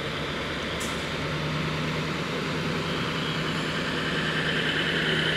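Diesel multiple-unit train passing slowly, its diesel engine running with a steady hum and its wheels on the rails growing a little louder near the end. A single sharp click about a second in.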